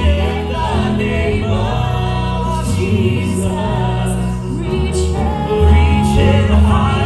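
Southern gospel group singing in mixed male and female vocal harmony through microphones and a PA, over a steady instrumental accompaniment with a strong bass.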